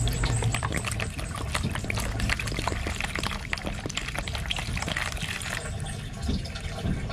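Water pouring into a plastic basin of fish, splashing and sloshing over them, easing off about five and a half seconds in.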